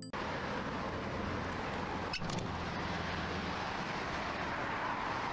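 Steady roadside traffic noise, with a short knock about two seconds in.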